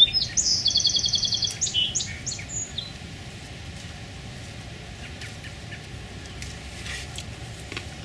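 A songbird sings one short phrase of high, quick notes with a fast even trill in the middle, over the first three seconds. After that only a steady low background remains, with a few faint clicks.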